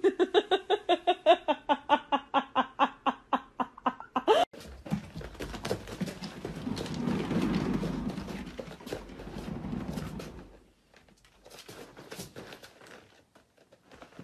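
A fast run of short pitched notes, about six a second, fading over the first four seconds. Then a cat runs inside a cat exercise wheel, which rumbles and rattles for about six seconds. A few lighter knocks follow as the cat leaves it.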